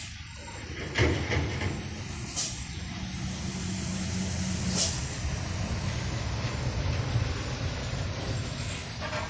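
Heavy truck's engine running steadily, with a knock about a second in and two short high hisses a few seconds apart.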